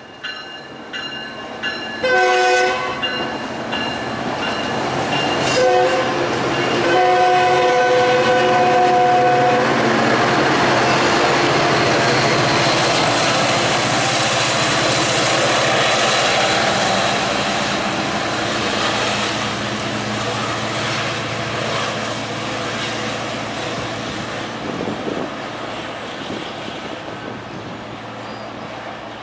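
A train horn sounds several chord blasts, the last and longest ending about ten seconds in. Then a Tri-Rail commuter train with its diesel locomotive rumbles past, with some clickety-clack of wheels, the noise swelling and then slowly fading as it pulls away.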